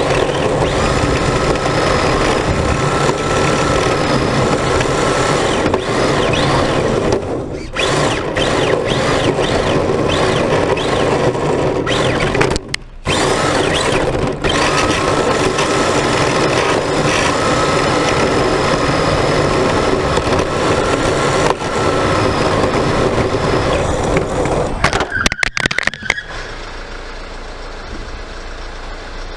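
Onboard sound of a radio-controlled car running flat out over paving stones: its motor runs loud and steady with a high wavering whine, easing off briefly twice. About 25 seconds in comes a burst of clattering knocks as the car crashes and tips over, then a quieter steady running sound continues.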